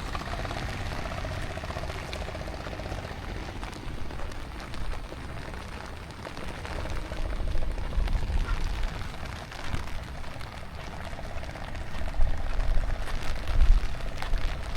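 Outdoor monsoon ambience: a steady rain-like hiss over a low rumble, as of wind buffeting the microphone. The rumble grows louder near the end.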